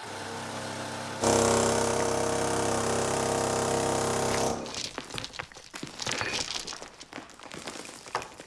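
A motor-driven machine running steadily with a hum, growing louder about a second in and cutting off suddenly halfway through; after that, irregular scraping and knocking from work on the rock.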